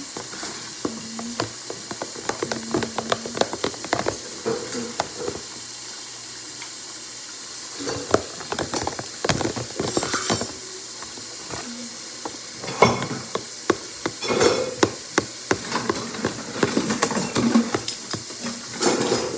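Spoon stirring thick cake batter in a plastic tub, with irregular runs of scraping and clicking against the sides and bottom and a few short pauses.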